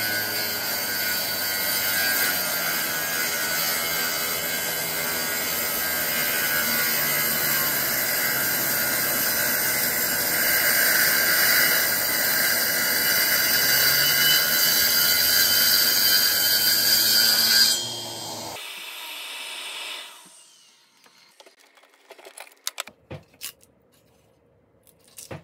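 Homemade circular saw, a 795 DC motor driving a 5.5-inch blade, running and cutting wood, its pitch sagging and recovering under load. It stops abruptly about eighteen seconds in, followed by a few faint clicks and knocks.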